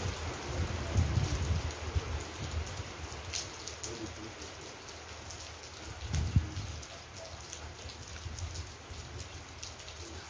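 Steady rain falling, with many small sharp ticks of drops over an even hiss. Irregular low rumbles run underneath, with one low thump about six seconds in.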